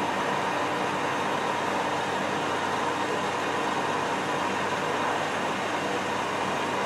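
Metal lathe running steadily, its spindle turning a cast iron plate in a four-jaw chuck while a threading bar cuts an internal 1-inch BSP thread (11 TPI), with a steady whine over the machine's hum.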